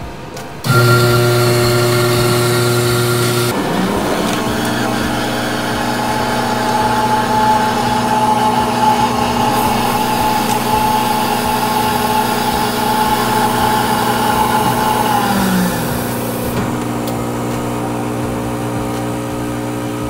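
Office coffee machine running as it brews and dispenses a latte into a cup: a loud, steady mechanical hum that starts about a second in. The hum changes character about three and a half seconds in and again around sixteen seconds.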